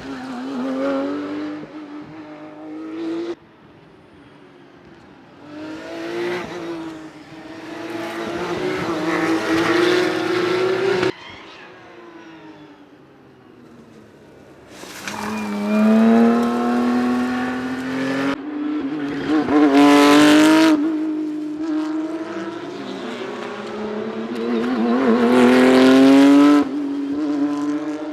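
Porsche 911 GT3 Cup flat-six race engines accelerating hard at full throttle in a series of separate runs. In each run the engine note climbs steadily in pitch, and several runs cut off abruptly.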